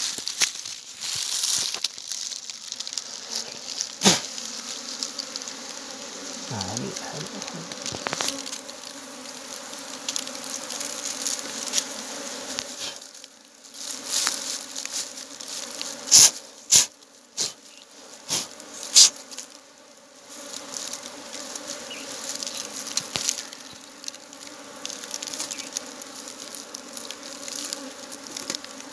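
Honeybees buzzing in a steady drone around a wild honeycomb being cut out and handled, the bees stirred up by the harvest. Sharp clicks and knocks from handling the comb near the microphone come now and then, loudest in a cluster a little past halfway.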